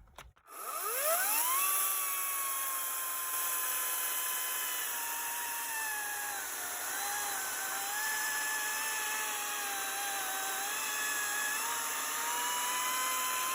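Ryobi RY40580 40-volt cordless chainsaw's electric motor whining up to speed about half a second in, then cutting wood. Its pitch drops and wavers under the load of the cut for several seconds, then rises back to free speed near the end.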